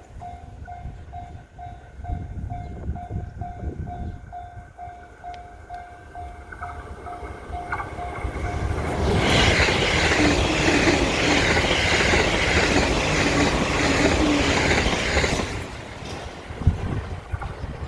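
Japanese level-crossing alarm bell dinging rapidly and evenly for the first half, then a JR E353 series limited-express electric train passes at speed for about six seconds, its wheels clacking rhythmically over the rail joints and drowning out the bell. Strong wind rumbles on the microphone throughout.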